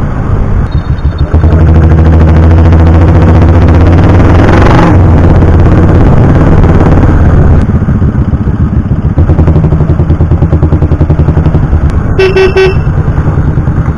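Motorcycle engine running while riding through town traffic, its note steady at first and then pulsing. A short vehicle horn beep sounds near the end.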